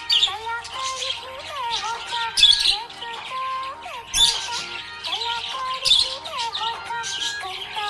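Budgerigar chirping and chattering in short bursts about every two seconds.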